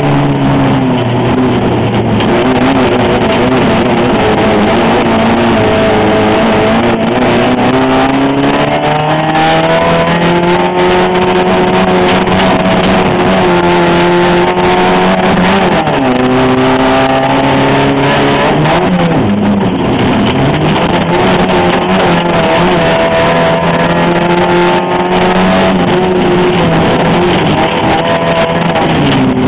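Race car's engine heard loud from inside the cockpit on a dirt track, its pitch climbing and then dropping sharply again and again as the driver accelerates, shifts and lifts.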